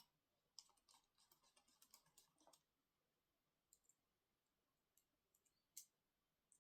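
Faint small clicks and taps of tools and parts being handled on an opened Mid 2012 15-inch MacBook Pro: one sharp click at the start, a quick run of rattling clicks over the next two seconds, then a few scattered clicks.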